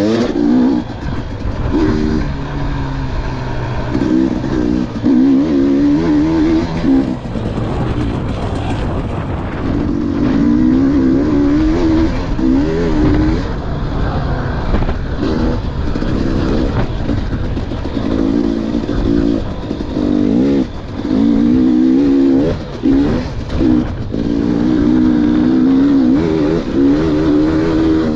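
KTM 300 XC two-stroke dirt bike engine racing around a motocross track, revving up and down as the throttle is opened and chopped several times, with wind rushing over the camera microphone.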